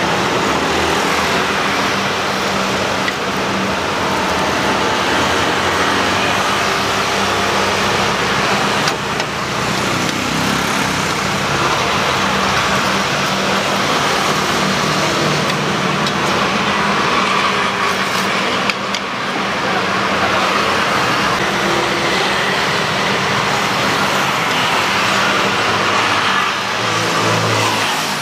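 Steady road traffic noise from passing vehicles, with a low engine hum and a couple of brief clicks.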